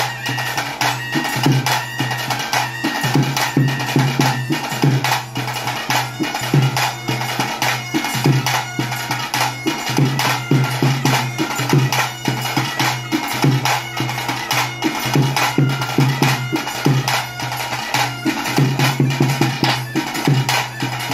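Traditional bhoota kola ritual music: fast, steady drumming under a reedy wind instrument playing a melody of short held notes.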